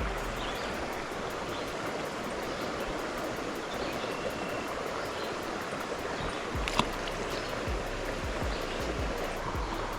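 A river running high after heavy rain, rushing steadily. There is one short sharp click about seven seconds in.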